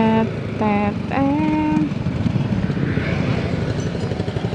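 Motorcycle running at riding speed, a steady low engine rumble with road noise.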